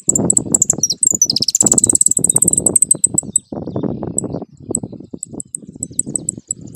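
Caged saffron finch singing: a fast, high trill that dips in pitch, from about one second in to past the middle, with short high ticks repeating around it. A loud, irregular low rumble runs underneath.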